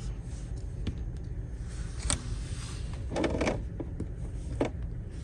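A few light clicks and a short rustle as small RC steering-rack parts are handled and fitted by hand, over a steady low hum.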